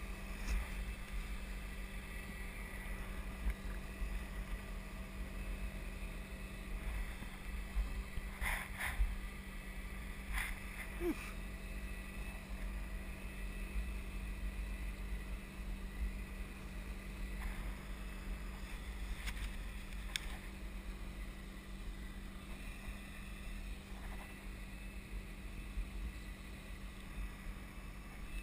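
Wind buffeting the microphone of a camera carried by a parasailer high above the water, heard as a steady low rumble. A few short clicks come through about a third of the way in and again a little past the middle.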